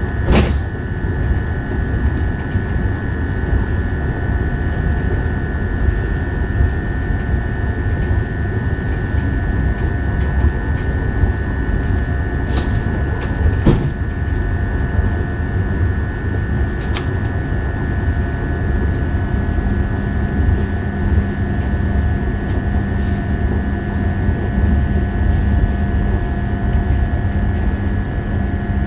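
Inside a Škoda Vagonka EJ575 electric multiple unit running at speed: a steady low rumble of wheels on rails with a constant high whine over it. A few sharp clicks come through, and a lower steady hum joins about two-thirds of the way in.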